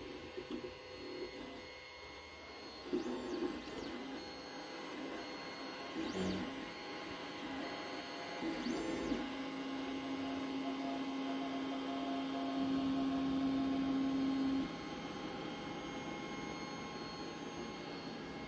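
Creality CR-X 3D printer printing in PLA: its stepper motors whir in short changing tones as the print head moves, over a steady fan hum. One motor tone is held steady for about five seconds in the middle.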